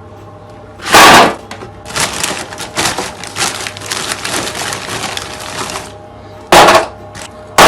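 Plastic freezer-food packaging being handled: about four seconds of dense, rapid crackling, with loud sharp noises about a second in and twice near the end.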